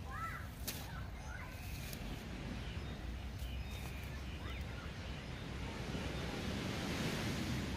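Small waves washing on a sandy shore with a steady wind rumble on the microphone, the surf swelling a little near the end. A few faint, short bird calls come through now and then.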